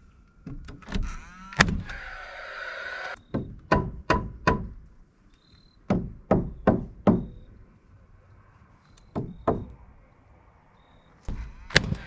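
Paslode cordless framing nailer firing nails into wooden siding boards. Each shot is a sharp bang followed by a brief whir from the tool. In between, a hammer strikes nails in quick runs of four or five blows.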